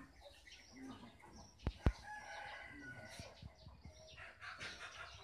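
Domestic chickens calling, short pitched clucks and crow-like calls, with two sharp knocks close together just before them.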